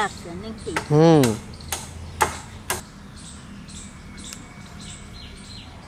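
Green chillies being picked by hand from the plant: several sharp snaps as stems break, then softer rustling of leaves. A brief voiced sound, the loudest thing here, comes about a second in.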